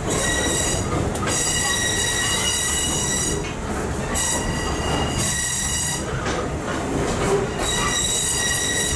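Steel railcar wheels squealing against the rails on a curve, heard from inside the passenger car: a high, ringing squeal that comes and goes three times over the steady low rumble of the car rolling along the track.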